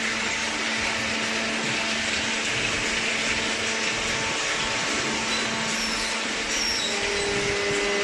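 Cardboard baler's hydraulic motor and pump running steadily: a constant hum under a steady mechanical whir, with a second, higher hum coming in near the end.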